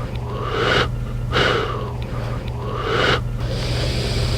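A person's heavy, noisy breathing: about three loud breaths that swell and fade, the last one cutting off sharply, over a steady low hum.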